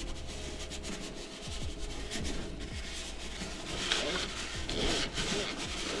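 A brush scrubbing wet metal heat-exchanger coils inside a gas condensing boiler's combustion chamber: rough, irregular scratching strokes, a little louder about two-thirds of the way through.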